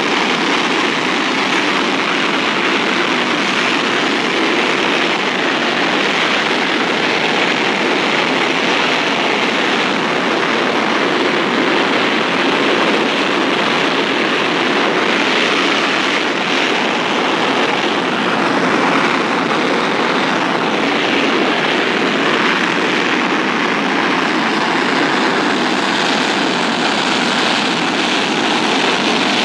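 GE J79 turbojet engine running steadily at idle, a constant even rush of noise with no change in pitch or level.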